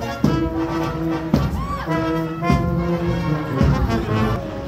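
Marching brass band playing a tune in the street, tuba and other brass holding notes, with a loud thump about once a second.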